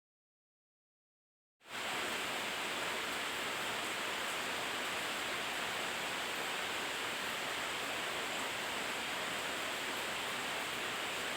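Dead silence for about a second and a half, then a steady, even hiss like static starts suddenly and holds unchanged.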